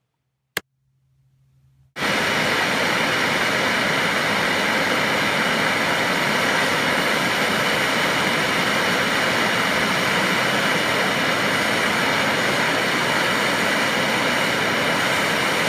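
Bernzomatic handheld gas torch flame hissing steadily, starting suddenly about two seconds in. The flame is heating a copper pendant from below to fuse its black counter enamel. A single short click comes just before, in near silence.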